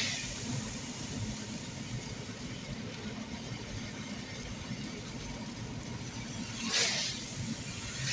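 Steady road and engine noise heard from inside a car driving in heavy rain, with a brief swish about seven seconds in.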